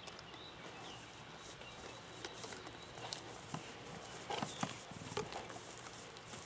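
Missouri Fox Trotter horse walking on grass under a rider: faint, irregular hoof thuds, with a few sharper knocks about three to five seconds in.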